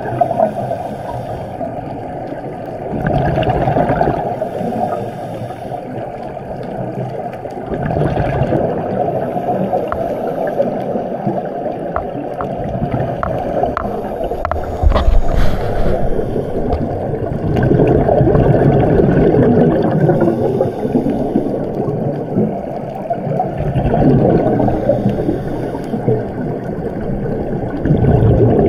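Muffled, uneven rushing and gurgling of water that surges louder and eases off several times.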